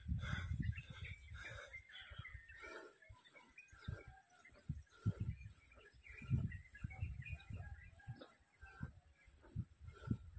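Many small birds chirping and calling in short, scattered notes, with intermittent low rumbling on the microphone that is loudest right at the start and again about six seconds in.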